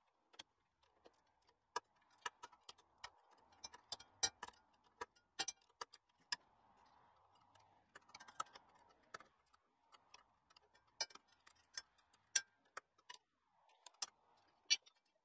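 Spanners clicking and clinking against the nuts and bolts that hold a chrome swivel ball to a Land Rover axle flange as they are done up: irregular light metal clicks, a few a second with short pauses.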